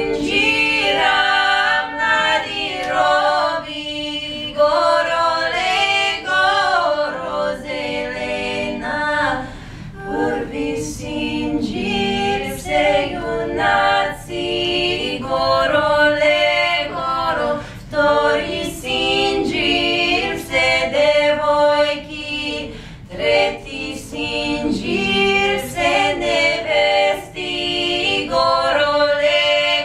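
Three women's voices singing a traditional Western Bulgarian song a cappella in harmony, phrase after phrase with short breaks between.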